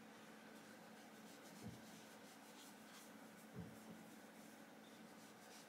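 Near silence: room tone with a faint steady hum and two soft knocks, one about a second and a half in and one past the middle.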